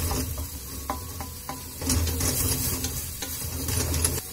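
Vegetables and freshly added tomato sizzling in a frying pan on a gas stove while being stirred with a wooden spatula, the sizzle swelling with each sweep of the stirring. A few light clicks about a second in as the spatula knocks against the pan.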